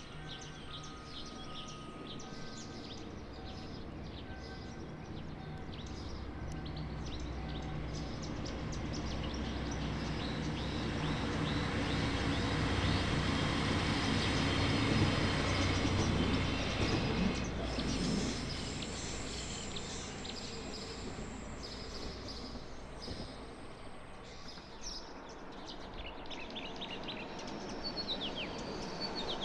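Multiple-unit passenger train rolling over a railway bridge: a rumble that swells to its loudest about halfway through, then fades away. Birds chirp throughout.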